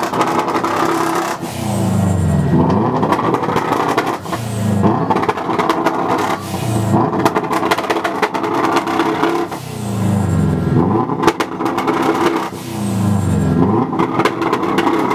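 Subaru flat-four engine revved hard on a stationary car, again and again, the revs climbing and then dropping back roughly every two to three seconds.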